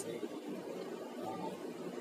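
Low, steady background hum and hiss of room tone, with no distinct events.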